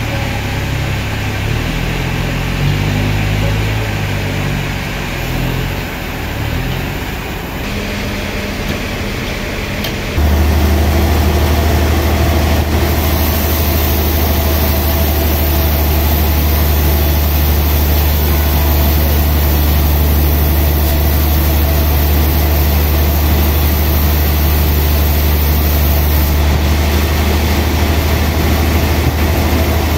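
Large band sawmill's motor running with a loud, steady low hum that comes in suddenly about a third of the way in, over the low, shifting rumble of other mill machinery. From shortly after that until near the end a high hiss joins it as the blade saws a slab off a big log.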